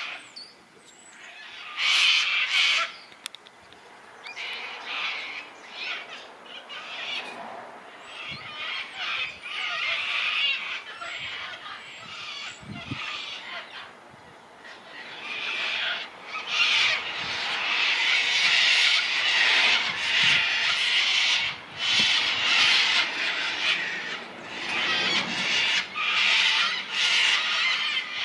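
A flock of sulphur-crested cockatoos calling with harsh screeches. There is a loud burst about two seconds in, then sparser, quieter calls, and over roughly the last twelve seconds near-continuous overlapping screeching from many birds.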